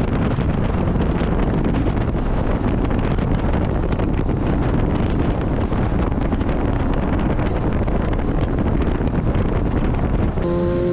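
Wind rushing over the microphone of a cruiser motorcycle riding at road speed, with the engine running underneath. Near the end a steady horn sounds.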